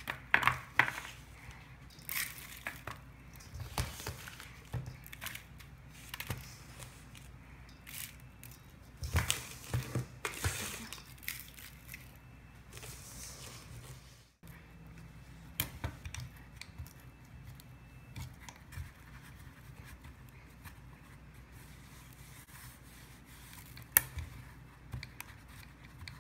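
Hands scooping and packing powdery bath bomb mix (baking soda and citric acid) into a plastic ice cube tray: scattered rustling, scraping and small taps, with one sharp click near the end.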